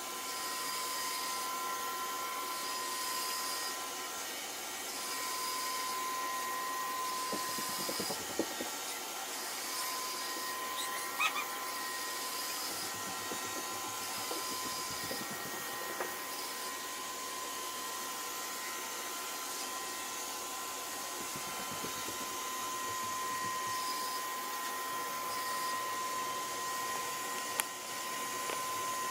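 Hoover Rogue 970 robot vacuum running: a steady motor hum and hiss with a high, even whine, broken by a few brief knocks.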